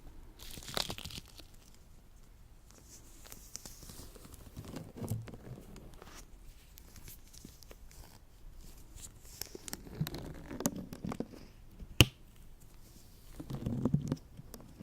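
Latex-gloved hands slick with lotion rubbing and pulling apart, giving sticky, crackling peeling sounds in irregular clusters, with one sharp snap about twelve seconds in.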